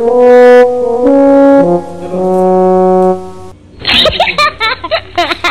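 Sad-trombone comedy sound effect: a brass 'wah-wah-wah-wahhh' of held notes stepping down in pitch, the last one long, stopping about three and a half seconds in. It is followed by a pasted-in burst of laughter.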